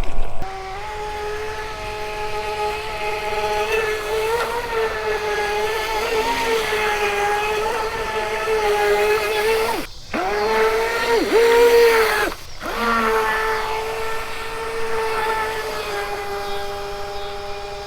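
Electric motor of an RC racing boat whining steadily at speed, its pitch wavering a little. The sound breaks off briefly twice, about ten and twelve and a half seconds in.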